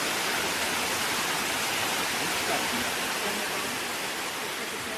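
Large waterfall cascading, a steady, even rush of falling water.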